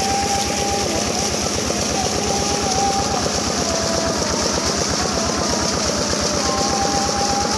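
Small diesel engine of a shallow-machine irrigation pump running steadily with a fast, even chug, while water gushes out of the pump's outlet in a thick jet.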